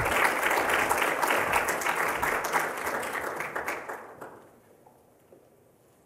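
Audience applauding after a speech, a dense patter of many clapping hands that dies away about four seconds in.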